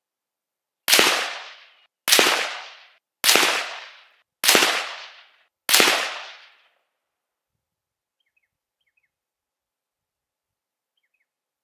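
Five rifle shots from a Warwick Firearms WFA1 in .300 Blackout, a 5-shot group of Sellier & Bellot 147-grain FMJ fired at an even pace about a second apart, each report ringing out for about a second. Faint bird chirps near the end.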